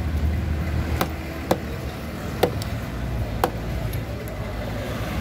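A large curved fish knife chopping through a trevally on a thick wooden cutting board: four sharp knocks, unevenly spaced, with a few fainter ticks between, over a steady low rumble.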